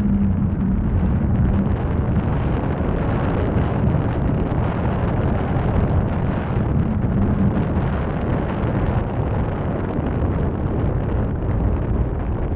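Steady low rumble of wind buffeting the microphone of a camera mounted on the outside of a moving car, mixed with the car's road and engine noise; a faint engine hum comes up briefly about six to seven seconds in.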